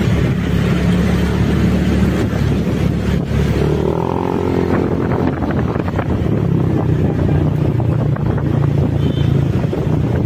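Vehicle engine running in slow city traffic, with road and wind noise.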